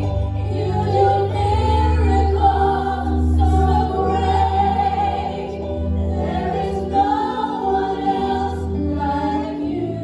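Gospel music: a choir singing held, sliding notes over a steady instrumental accompaniment.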